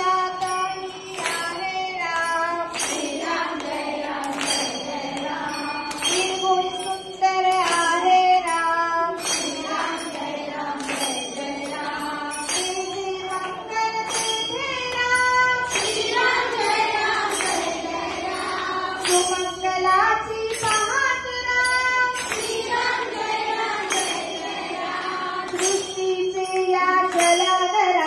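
Devotional song for a dindi procession: a voice sings a melody over a steady metallic beat struck a little more than once a second.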